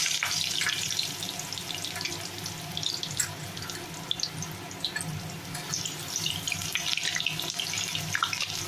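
Thin potato slices deep-frying in hot mustard oil in a kadai: a steady sizzle with many crackles and pops, loudest at the start just after the slices go in, then settling a little.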